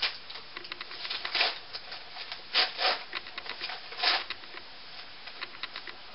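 Shipping package being handled and opened: irregular rustling, scraping and a few short louder rips, thinning to faint scattered ticks near the end.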